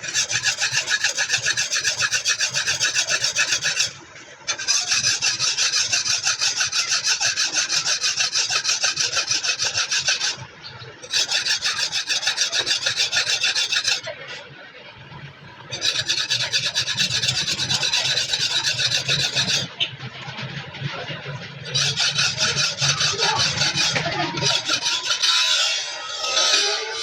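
Cleaver blade being filed by hand: rapid, rough rasping strokes of a file on steel, in bouts of several seconds broken by short pauses.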